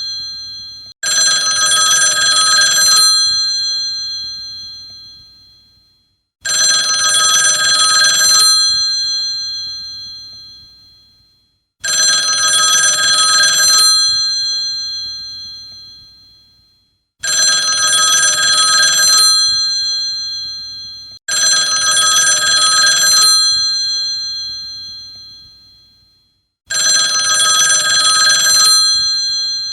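Old telephone's mechanical bell ringing in repeated rings, six in all, each about two seconds of rapid clanging that then dies away before the next ring.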